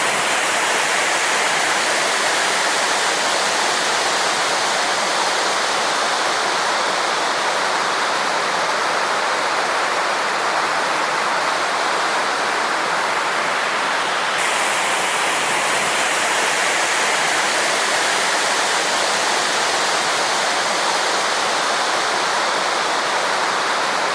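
Waterfall running: a loud, steady rush of falling water. About 14 seconds in, its upper hiss shifts abruptly.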